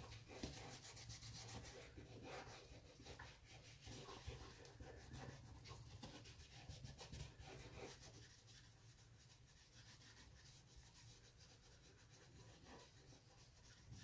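Faint rubbing of gloved fingers working conditioning cream into a leather shoe upper: quick, soft strokes that grow quieter about halfway through.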